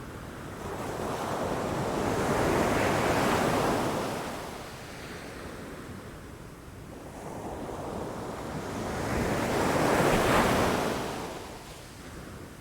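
Ocean waves breaking against rocks, two waves swelling up to a loud crash, the first about three seconds in and the second about ten seconds in, each ebbing away after.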